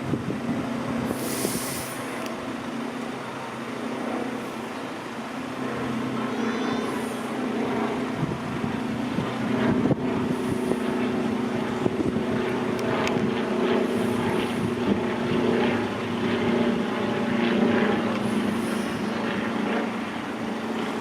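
Diesel passenger train engine running steadily at a level crossing, with scattered sharp clicks from about ten seconds in.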